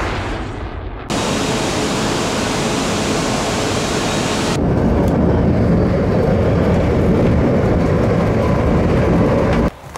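Steady, loud rail noise. First comes the hissing rumble of a large station platform. About halfway it changes to the duller rumble heard inside a moving train, which cuts off suddenly near the end.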